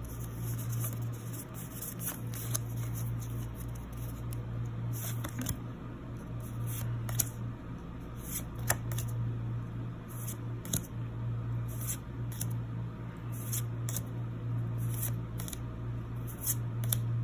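Pokémon trading cards being slid one at a time from the back of a small stack in the hand to the front, each move a short papery click or swish, about one a second at an irregular pace, over a steady low hum.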